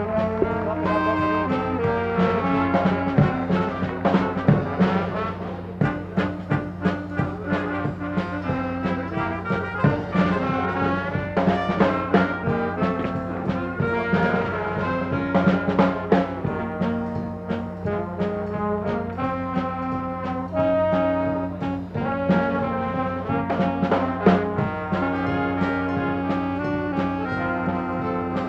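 Brass-led circus band music, trombones and trumpets playing held, changing notes over frequent drum strikes.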